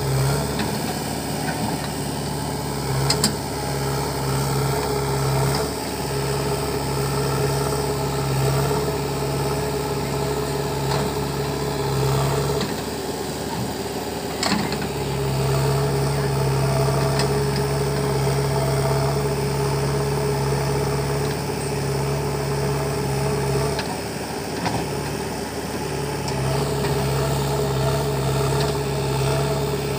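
JCB 3DX backhoe loader's diesel engine running steadily while the backhoe digs, its note changing twice, about halfway and near the end, as the hydraulics take load. A couple of sharp clicks, the loudest just after the start.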